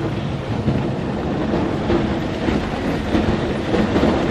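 Lada Niva 21214 engine pulling steadily under load as the car drives through an iced-over puddle, with repeated cracks and crunches of breaking ice and knocks under the wheels.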